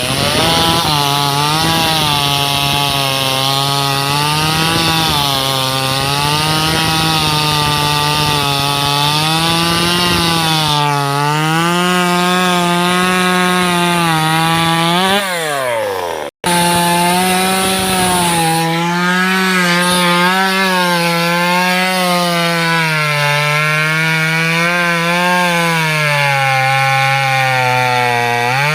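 Top-handle two-stroke chainsaw cutting into teak wood, its engine pitch wavering up and down as the chain bogs and frees in the cut. There is a brief sudden break just past halfway, after which cutting continues.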